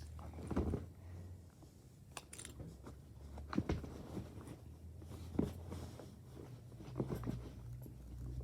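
Small plastic and silicone fidget toys being handled: scattered clicks, small pops and soft knocks at uneven intervals, over a low steady hum.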